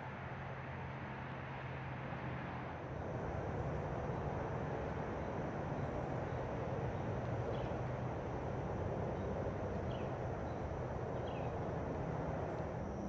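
Woodland ambience: a steady rushing noise with a low hum, a thin steady high insect buzz, and three faint short falling bird chirps in the second half.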